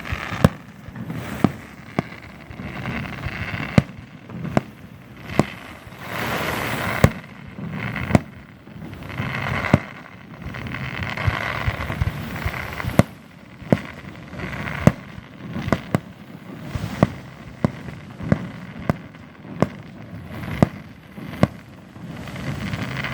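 Fireworks going off: about two dozen sharp bangs at irregular intervals, roughly one a second, with stretches of rushing noise between them.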